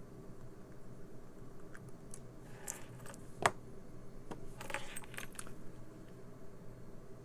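Small metal hand tools clicking and clinking against each other and the work surface during close-up work on a tiny circuit board: scattered light ticks, one sharp click about three and a half seconds in, and a quick run of clinks around five seconds.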